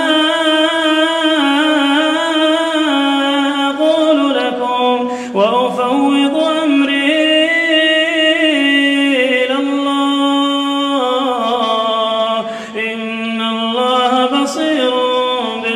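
A man reciting the Quran aloud in Arabic in a melodic, chanted style, his voice holding and ornamenting long notes, in long phrases broken by two short pauses for breath.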